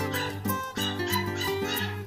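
Background music with a steady rhythm of notes, with a young kitten mewing over it.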